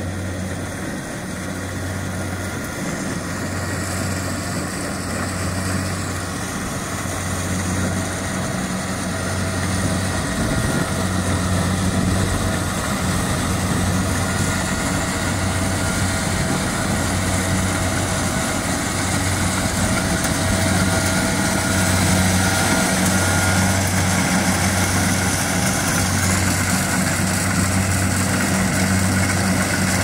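Kubota rice combine harvester running under load as it cuts rice: a steady diesel engine drone with the clatter and whir of the header and threshing mechanism, growing gradually louder as the machine comes closer.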